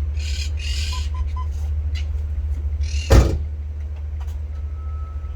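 A car door slamming shut about three seconds in, over a steady low rumble. Three short beeps sound about a second in.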